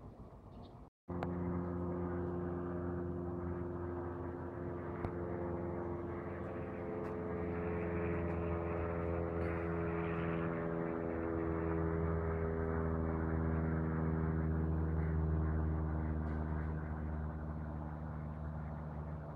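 Engine drone of a light high-wing propeller plane flying overhead. It starts abruptly about a second in as a steady low hum with overtones, its pitch shifting a little midway, and grows slowly louder before easing off slightly near the end.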